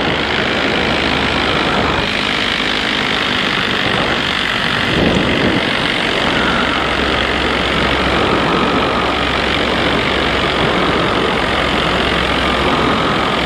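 Two-stroke paramotor engine and propeller running steadily at low cruise throttle.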